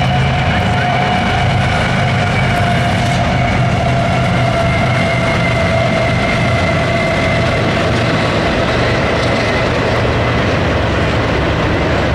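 Several CSX diesel-electric locomotives passing at speed at the head of a train, their engines running loudly and steadily. A whining tone slowly falls in pitch as they go by.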